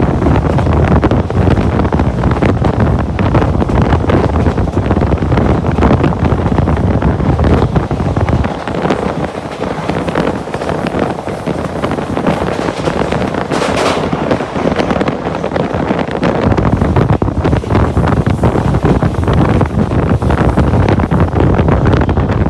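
Loud rushing wind buffeting the microphone, with a heavy low rumble that drops away for several seconds in the middle and then returns.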